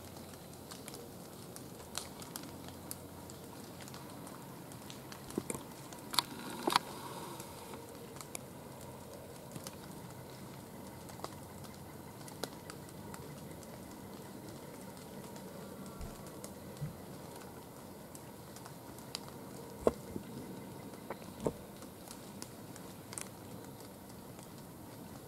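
Light rain pattering on dry fallen leaves and gear: a soft steady hiss with scattered drop ticks and a few sharper clicks, the loudest about six seconds in and again around twenty seconds in.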